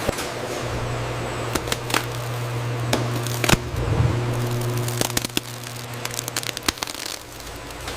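Bottling-line machinery: a steady low electric hum with irregular clicks and clacks over it. The hum stops about a second before the end.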